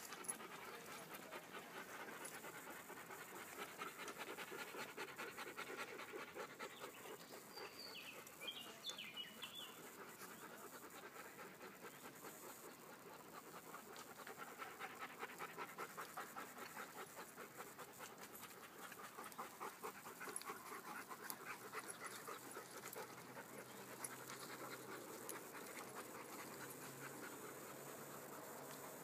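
Beauceron dogs panting steadily and rapidly, quick rhythmic breaths.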